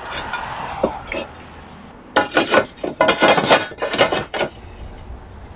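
Roof tiles knocking and clinking against one another and the frame as they are laid back in place by hand. A few knocks come in the first second, then a quick run of clattering from about two seconds in.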